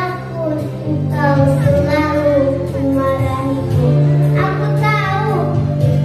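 Children singing together over a musical accompaniment with sustained low notes underneath.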